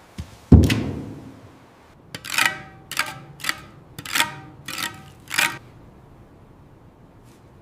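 A heavy low thump, then a run of about seven sharp metal strikes, each ringing briefly, spaced about half a second apart: metal being struck with a hammer during repair work.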